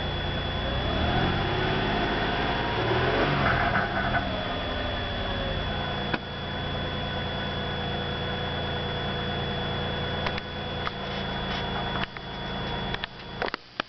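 2002 Nissan Maxima's 3.5-litre V6 running with the rattle under the hood that the owner is trying to trace, revved once about a second in and then settling back to idle. A few sharp clicks near the end.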